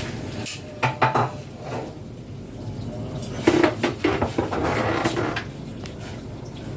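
Clinks, knocks and clatter of small hard objects being handled and set down, a few sharp clicks with a short scraping stretch between them.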